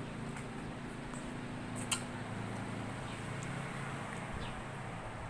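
Steady low hum of room background noise, with one sharp click about two seconds in.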